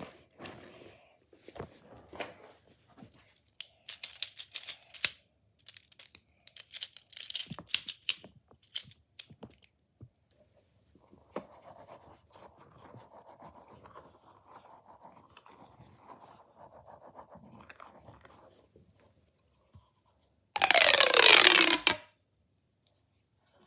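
Fidget toys handled close up: several bursts of crackly, crinkly squeezing, then a long stretch of soft rubbing, and near the end a loud ringing zip that glides down in pitch as a plastic pop tube is stretched.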